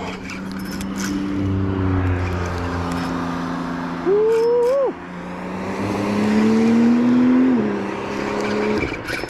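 A motor vehicle's engine running, its pitch slowly rising and then dropping near the end. A man whoops about four seconds in.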